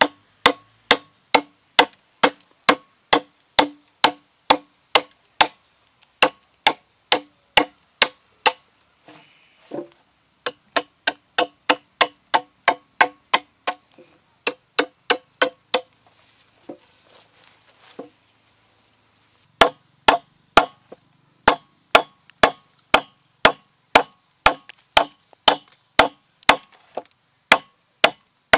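Machete chopping into a green bamboo pole resting on a wooden board. It lands quick, sharp strikes about two a second, in runs broken by short pauses, with a longer lull about two-thirds of the way through.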